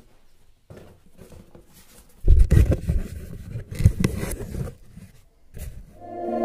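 Cardboard box being handled. Starting about two seconds in, there are a couple of seconds of scraping and rustling, with sharp clicks, and a single knock follows near the end.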